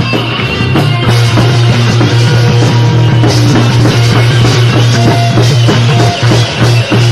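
Live improvised rock from a three-piece band, recorded raw with no sound check: a busy drum kit and guitar over a loud, held low note that starts pulsing on and off with the beat about six seconds in.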